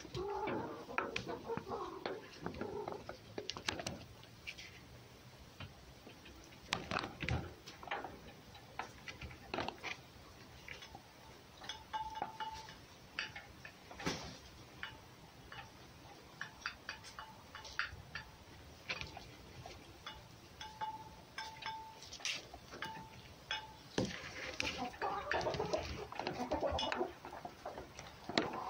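Scattered light clicks and scrapes, like claws and paws on a wooden board, with bouts of chickens clucking near the start and again toward the end.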